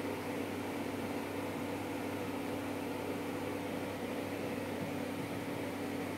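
A steady mechanical hum with a low drone and an even hiss, unchanging throughout.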